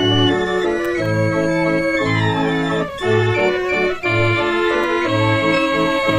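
Organ music with a bass note pulsing about once a second under sustained chords, with sliding glides in pitch about two seconds in.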